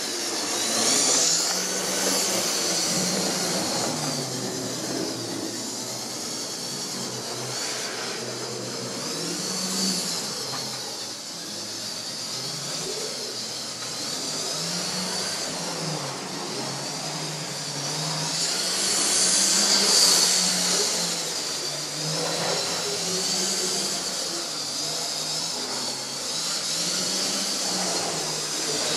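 Model railway locomotives running on the layout under analogue (non-digital) control: their small electric motors and gears whine steadily, the pitch wavering, swelling louder about a second in and again about twenty seconds in.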